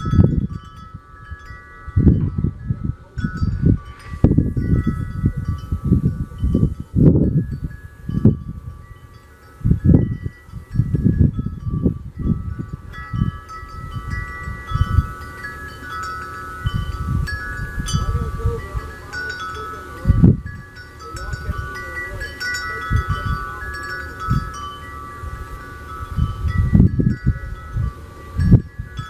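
Wind chimes ringing, many tuned notes overlapping and sustaining. Beneath them an uneven low rumble rises and falls every second or so and is the loudest sound.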